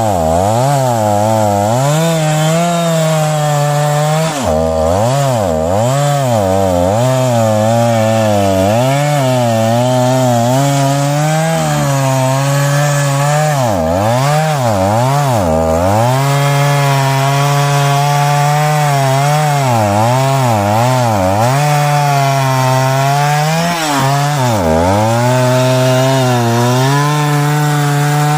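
Two-stroke chainsaw cutting into a tree: the engine runs at high speed, its pitch dipping and recovering over and over as the chain bogs down in the wood. The deepest dips come a few seconds in, around the middle, and near the end.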